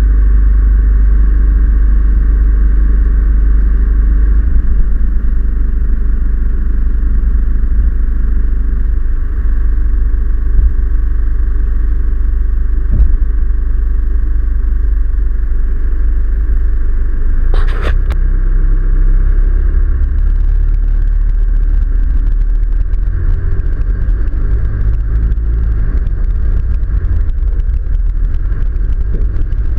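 Four-wheel-drive vehicle's engine running while the vehicle stands still, picked up by a GoPro mounted low on the outside as a heavy low rumble. A short rattle comes a little past halfway, after which the vehicle moves off and its tyres rumble unevenly over the dirt and gravel road.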